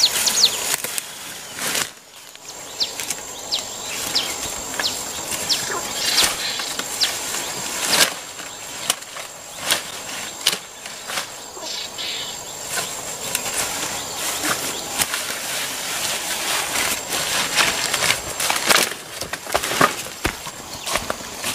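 Leafy undergrowth rustling, with many sharp snaps as stems are broken off and wild greens are picked by hand. Behind it runs a steady high-pitched insect buzz.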